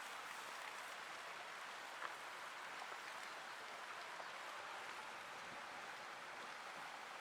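Beef frying in garlic oil in a pan: a steady sizzling hiss with a few faint pops.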